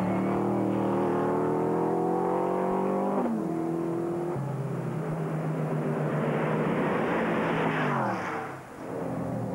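Mercedes-Benz CLK-LM race car's V8 engine at full throttle, pitch climbing as it pulls through the gears with an upshift about three seconds in. Near the end the car passes close by, its engine note falling in pitch.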